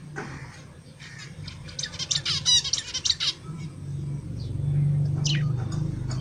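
Harsh bird squawks in a quick run of sharp calls about two to three seconds in, with one more short call near the end. A low steady hum grows louder through the second half.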